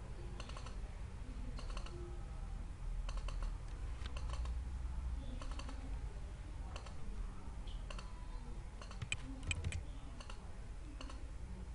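Irregular clicks of a computer mouse and keyboard, many coming in quick pairs, over a low steady hum.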